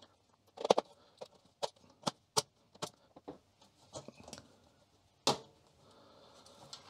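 Plastic retaining tabs on the Amstrad CPC 6128 keyboard's metal back plate clicking as they are pushed free: a string of short sharp clicks, then one louder knock about five seconds in as the plate comes loose.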